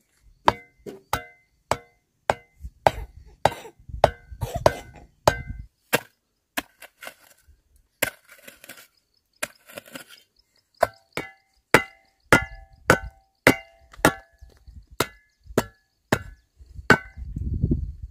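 Repeated blows of a hand tool on wood, about one and a half strikes a second, each with a short ringing metallic note, pausing for a few seconds in the middle with some faint scraping. A low, dull rumble of handling comes in near the end.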